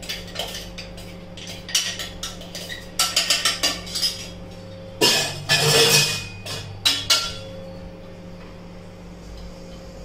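Mixer-grinder jar being emptied of coarsely ground bhakri into a steel plate: a run of quick metallic clinks and knocks, with a louder scraping stretch about five seconds in. It goes quieter from about seven seconds.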